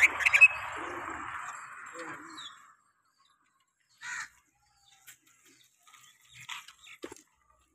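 Caged bulbul giving a few short, scattered chirps, about four seconds in and again near the end. Over the first two and a half seconds a steady rushing noise with a few sharp clicks sits under the calls.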